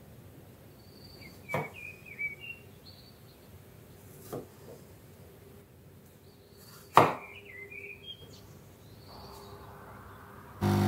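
Kitchen knife cutting strawberries on a bamboo cutting board: three sharp knocks of the blade on the board, about one and a half, four and a half and seven seconds in, the last the loudest, with faint high chirps in between. Near the end a loud steady machine hum starts suddenly, a coffee machine running.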